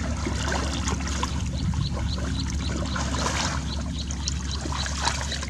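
Shallow water trickling and sloshing with small scattered splashes, over a steady low hum.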